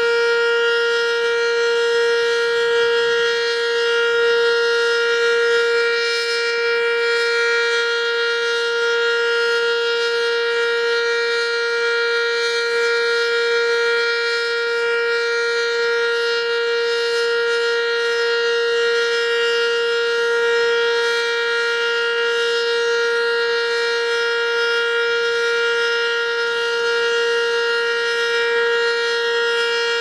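ACA Banshee outdoor warning siren sounding a loud, steady tone during a siren test.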